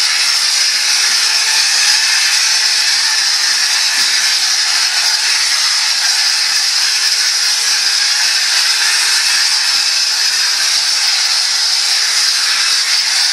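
Plaster spray gun on a long lance spraying a finish coat onto a ceiling: a loud, steady hiss of atomising air and material that does not break or change.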